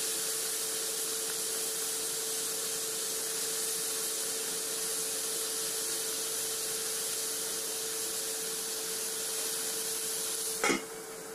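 Green beans and pork sizzling in a hot wok while being stirred with a spatula, a steady hiss with a steady hum beneath it. Near the end there is a single sharp clank, after which the sizzle is quieter, as the wok's steel lid goes on.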